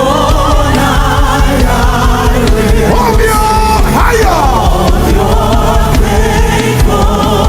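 Loud live gospel worship music: a band playing steadily with voices singing over it, one voice sliding in pitch about four seconds in.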